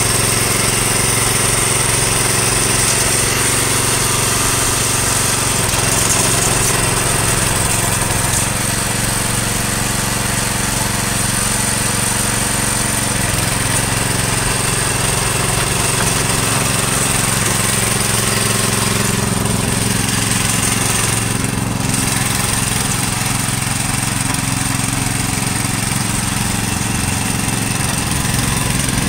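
Small petrol engine of a tracked power barrow running steadily as the barrow is driven at walking pace, with a steady high whine above it.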